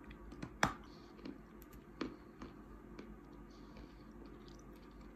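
Quiet chewing of a hard dried blue-clay cookie: a few soft crunches and mouth clicks, the sharpest about two-thirds of a second in.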